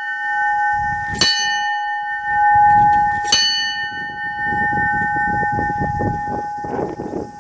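A large metal bell hanging in a heart-shaped monument, rung by hand: it is struck twice, about a second in and about three seconds in, and rings on with a long, steady tone between and after the strikes. A low rumbling noise runs underneath.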